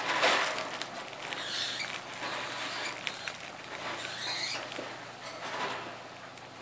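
Wrapping paper crinkling and tearing in several bursts as an Alaskan Malamute rips at a wrapped present with its mouth.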